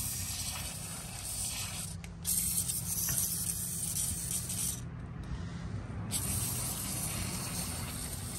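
Aerosol can of penetrating oil spraying into a stuck clutch, hissing in long bursts with short breaks about two seconds in and again around five seconds in.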